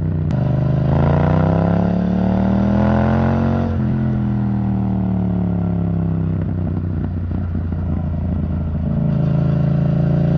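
Yamaha MT-07's parallel-twin engine through an Arrow Thunder titanium exhaust, pulling hard with revs climbing for a few seconds. Then the throttle shuts and the revs fall away slowly on the overrun, and the engine settles to a steady note near the end.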